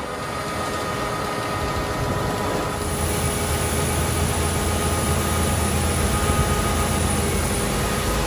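Heavy farm-machine engine running steadily. It grows louder and deeper about two to three seconds in, and a faint high whine comes in at about the same time.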